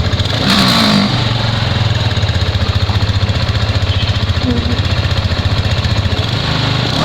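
Rusi RFI 175 scooter's single-cylinder engine idling steadily at standstill during a sound check, with a brief louder moment about half a second in.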